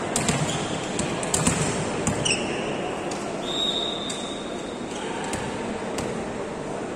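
Volleyball play on a hall court: several sharp ball hits and thuds over a general crowd murmur. A short high squeak comes about two seconds in, and a steady high tone lasting about a second and a half falls in the middle.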